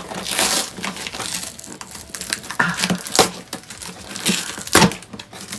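Shipping package being opened by hand: rustling and crinkling of packaging with scattered sharp knocks and scrapes, the loudest knock near the end.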